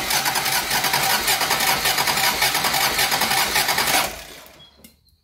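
Starter motor cranking a Toyota 1G-GTE twin-turbo straight-six over without it firing, since no fuel system is fitted, during a spark check with a spark plug out. It cranks steadily, then stops and fades about four seconds in.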